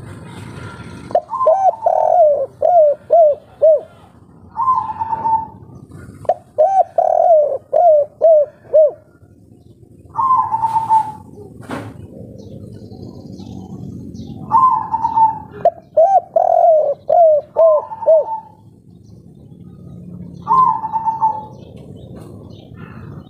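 Spotted dove (derkuku) cooing in repeated phrases: a higher opening note, then a quick run of about five lower coos, with a few phrases cut short to the opening note alone. It is a local 'kuk 3' type bird, as Indonesian dove keepers class its song. A single sharp click falls about halfway through.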